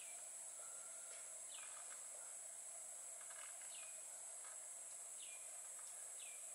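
Faint outdoor ambience: small birds chirping, several short falling notes a second or so apart, over a steady high-pitched insect drone.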